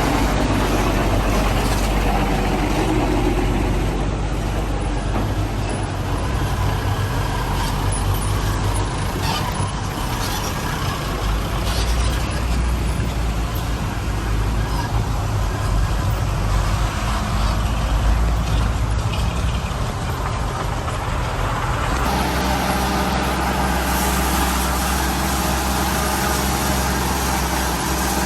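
Heavy diesel engines of earthmoving machinery running under load with a steady low drone. The engine note shifts suddenly about three-quarters of the way through.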